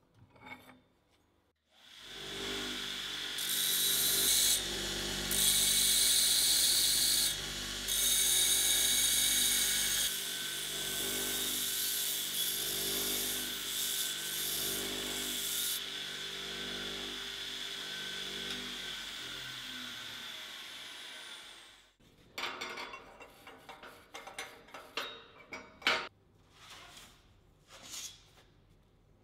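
Belt grinder starting up about two seconds in, a steel part pressed against the belt in several passes with loud hissing grinding, then the motor winding down. After that, scattered knocks and clatter of metal being handled.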